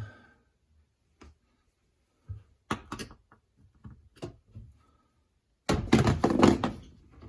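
Hard plastic and metal knocks and clicks from handling the parts inside a dishwasher tub and working a screwdriver at a cover screw. Scattered single clicks at first, then a busier run of clattering near the end.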